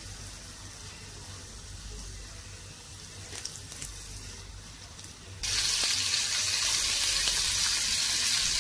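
Flour-coated chicken legs deep-frying in hot oil in an iron pan, the oil sizzling steadily. The sizzle jumps suddenly louder a little past halfway.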